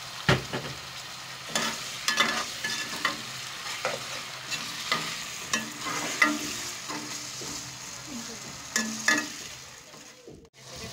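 Chopped tomatoes, browned onions and ginger-garlic paste sizzling in oil in a metal pot, stirred with a perforated steel ladle that scrapes and clinks irregularly against the pot: the masala base being fried so the tomatoes cook down. The sizzle briefly drops out near the end.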